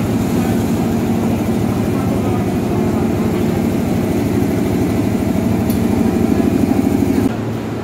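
A crowd of passengers talking and shuffling along a station platform, over the steady low hum of a KRL Commuter electric train standing at the platform. Everything drops away suddenly near the end.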